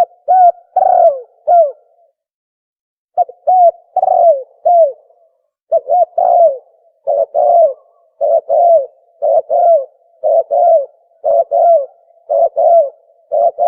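Dove cooing call, a recorded 'tukmo' call used as a hunting lure: short coos repeated over and over in quick pairs and triples. After a pause of about a second near the start it runs on in an even rhythm.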